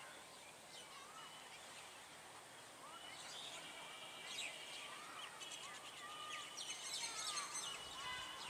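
Birds chirping and calling in short overlapping phrases, faint and busiest about seven seconds in.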